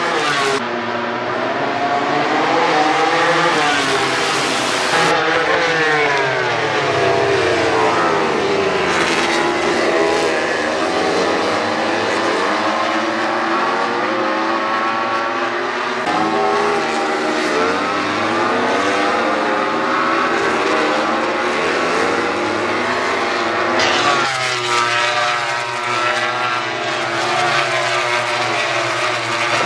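Racing motorcycle engines at high revs as MotoGP bikes pass at speed, several at once. The engine pitch keeps rising and falling through gear changes, braking and acceleration, with a sudden change a few seconds in and again near the end.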